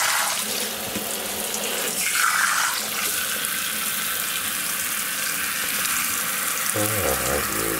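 Kitchen sink sprayer running in shower mode, a steady hiss of water spraying onto a wet capuchin monkey and the stainless-steel sink basin.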